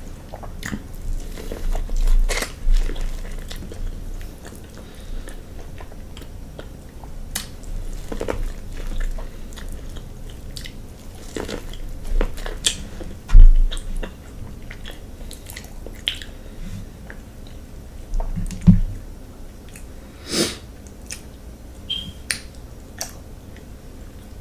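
A person chewing and smacking mouthfuls of a seafood boil, close to the microphone, with scattered sharp wet clicks. There is a single low thump about 13 seconds in.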